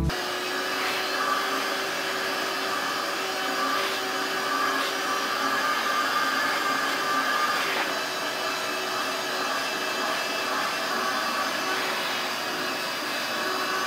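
Steady whir of a vacuum pulling air through a hose attached to a handheld sanding tool as oak cabinet doors are sanded down for paint.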